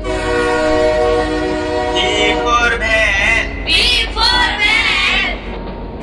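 Cartoon train sound effect: a held train horn over a low rumble, joined about two seconds in by a warbling, wavering pitched sound.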